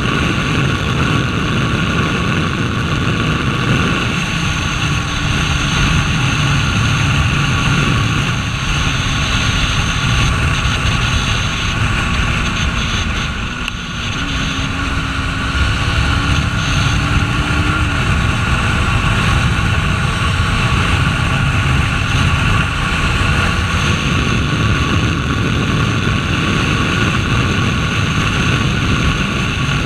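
KTM RC 390's single-cylinder engine running at road speed under a steady rush of wind noise, its pitch stepping up and down a few times, with a brief dip in loudness about fourteen seconds in.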